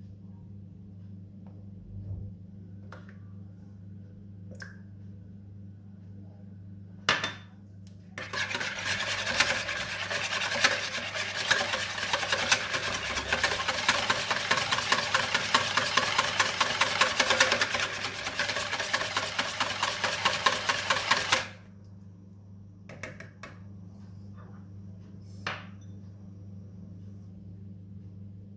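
A wire whisk beating two eggs in a large mixing bowl: a fast, steady rattle of strokes that lasts about thirteen seconds. A single sharp knock comes just before it, and a few light clicks after.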